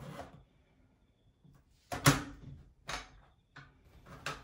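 A few sharp plastic knocks and clicks as an on-toilet bidet attachment and the toilet seat are shifted and repositioned by hand, the loudest about two seconds in.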